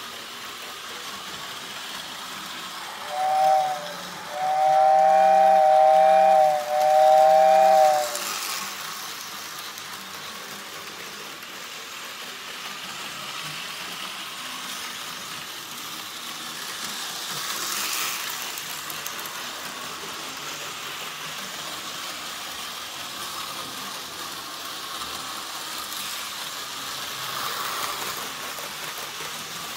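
Tyco horn-whistle accessory for an HO scale train set sounding a two-note horn: one short blast about three seconds in, then two long blasts that end about eight seconds in. Through the rest, the HO train makes a steady low running hiss on the track.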